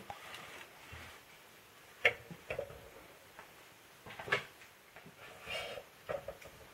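A cardboard mailing tube being set down and shifted on a plastic shipping scale's tube cradle: several light knocks, the sharpest about two and four seconds in, and a brief rub near the end.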